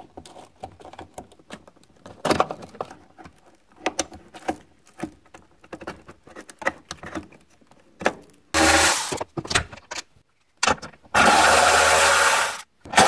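Plastic connectors clicking and being handled as the airbag control module's plugs are pulled, then a Milwaukee cordless power tool running in bursts on the module's mounting bolts: a short run, a brief blip, and a longer run of about a second and a half, louder than the handling before it.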